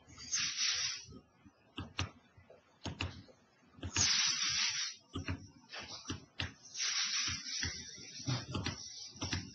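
Computer mouse clicking a few times, short sharp taps between several bursts of breathy hiss on a close microphone.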